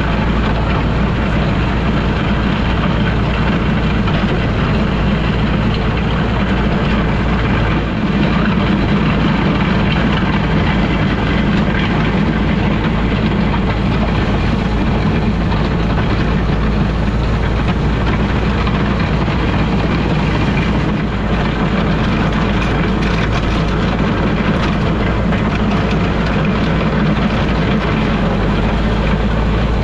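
International Harvester 460 tractor engine running steadily at a constant speed, a loud low drone with no pauses.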